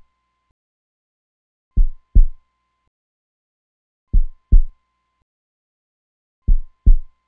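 Slow heartbeat sound effect: three deep double thumps, lub-dub, each pair a little over two seconds apart, with silence between.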